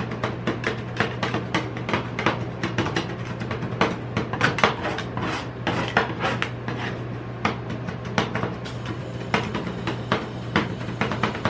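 Metal spatulas rapidly tapping, chopping and scraping on the steel cold plate of a rolled-ice-cream stand, in irregular clusters of several strikes a second, over a steady low hum.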